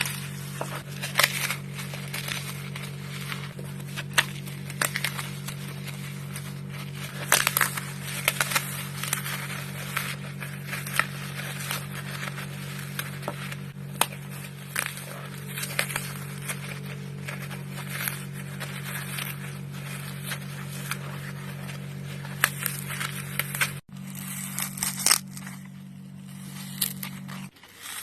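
Dry floral foam being crushed: a dense run of crunchy, irregular crackles and sharp snaps, with a steady low hum underneath that drops out briefly about 24 seconds in.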